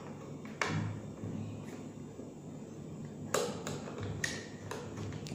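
Scattered small clicks and knocks of a wall bracket and its knob bolt being handled and fitted to the side of an LED temperature and humidity display; the sharpest click comes a little past three seconds in, with several lighter ones after it.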